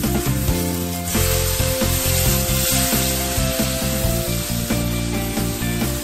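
Diced raw chicken sizzling in hot oil in a wok and being stirred with a spatula; the sizzle swells about a second in as the chicken hits the pan. Background music plays over it.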